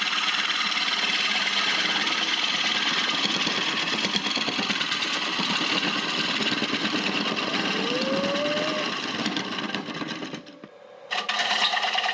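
Bowl gouge taking a deep hollowing cut inside a spinning bowl blank on a wood lathe: a steady scraping hiss of the cut over the lathe's running. About ten seconds in it drops away for under a second, then starts again abruptly.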